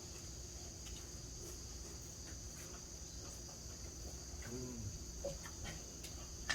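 Insects chirring in a steady high-pitched chorus, with a brief faint voice about four and a half seconds in.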